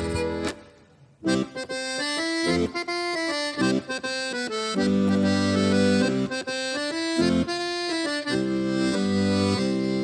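Folk band playing an instrumental tune live: a quick melody over held chords, with a short break about a second in.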